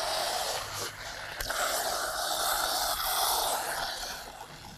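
Coca-Cola fizzing hard as five Mentos set it foaming up into a balloon over the bottle neck: a steady, loud hiss of the dissolved CO2 coming out of the drink almost at once. The hiss dies away near the end.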